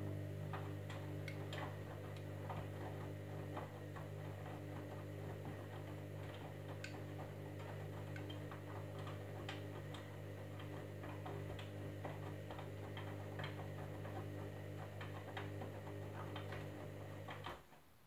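Candy Grand'O Vita washing machine turning its drum through a wash tumble: the motor hums steadily while the wet load sloshes and makes irregular clicks inside the drum. The motor stops suddenly near the end as the drum pauses between turns.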